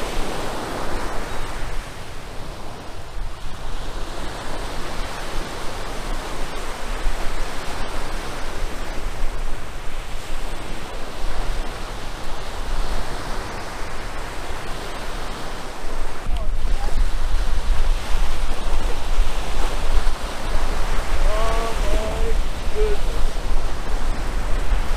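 Surf breaking on the shore with wind buffeting the microphone; the wind rumble gets heavier about two-thirds of the way through.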